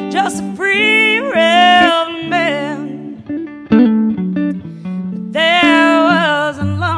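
Music: a folk-blues song with guitar accompaniment under a lead melody that bends and wavers in pitch, coming in phrases of one to two seconds.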